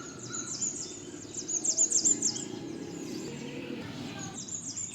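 Birds chirping, a dense run of quick, high, downward-sweeping chirps over a steady low background, busiest in the middle.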